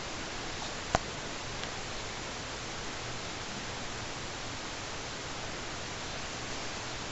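Steady, even hiss with one sharp click about a second in.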